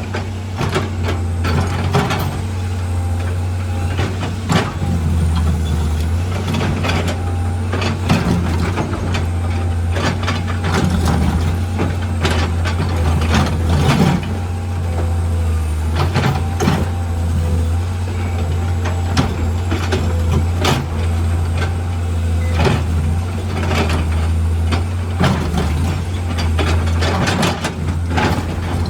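Heavy diesel earthmoving machinery at work: an engine running steadily under frequent clanks and knocks of steel bucket and rock, as an excavator digs and loads.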